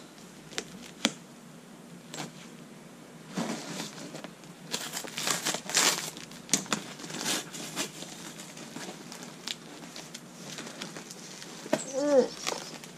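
Cardboard box being cut and torn open by hand, packing tape ripping, with plastic packing crinkling and rustling; a run of sharp clicks and rips, busiest in the middle.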